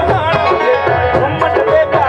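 Live Sindhi folk song: a male voice singing over hand drums and sustained pitched accompaniment, with a steady beat.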